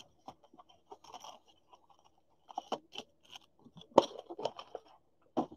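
Trading-card blaster box and foil packs being handled, with faint, scattered crinkling and rustling of the packaging. There is a sharper knock about four seconds in, as packs are set down on the table.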